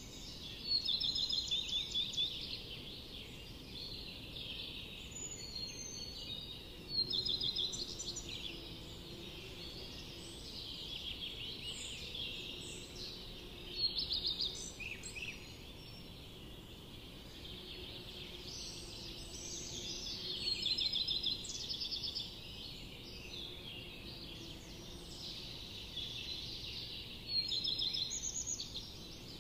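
Small birds chirping and trilling, with louder bursts of rapid chirps every six or seven seconds over a steady low background hiss.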